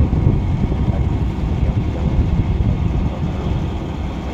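Hydraulic excavator's diesel engine running with a steady low rumble.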